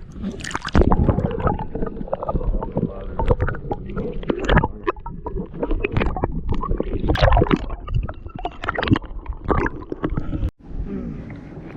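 Irregular knocks, bumps and water noise in a small boat as a gafftopsail catfish is brought in and handled.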